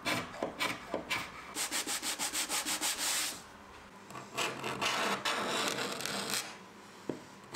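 Hand scraper with a triangular blade scraping old finish off wood veneer. A quick run of short strokes comes at about six a second, then a few longer, slower strokes.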